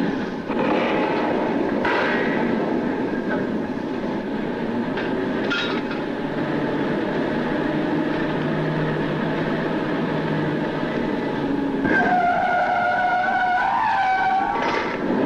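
Oil-well drilling rig machinery running with a steady, dense mechanical noise, broken by metallic clanks from pipe work on the drill floor in the first half. Near the end a wavering high tone rides over the din.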